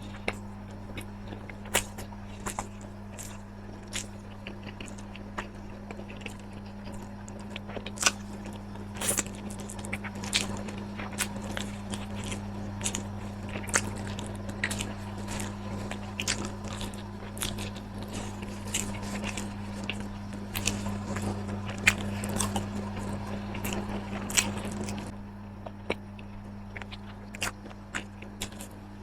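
A person eating close to the microphone, biting and chewing with many small, sharp, irregular clicks. A steady low hum runs underneath.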